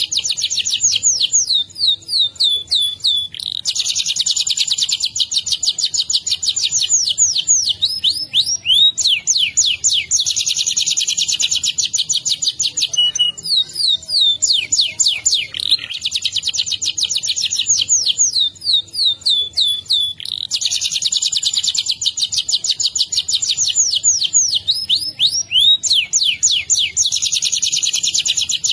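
Domestic canary singing a long rolling song without pause: long runs of very fast high trills alternating with strings of quick downward-sweeping notes. The same sequence of phrases comes round again about halfway through.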